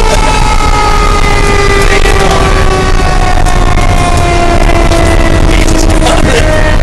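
A fire engine's siren winding down, its pitch falling slowly and steadily and picking up briefly about three and a half seconds in, over the truck's engine and road rumble heard inside the cab.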